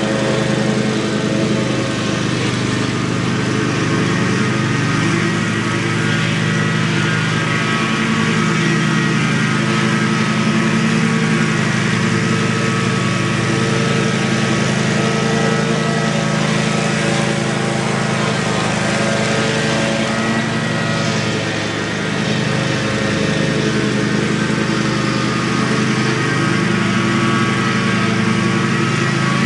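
Stand-on commercial lawn mower's engine running steadily under load as it cuts thick, overgrown grass. The sound dips a little for a moment about two-thirds of the way through.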